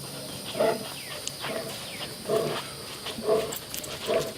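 A liger breathing heavily as it walks: five short, low puffing grunts, about one a second.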